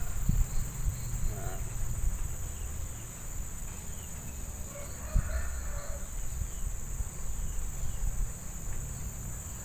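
Steady high-pitched drone of insects, with a low rumble underneath and a soft knock about five seconds in.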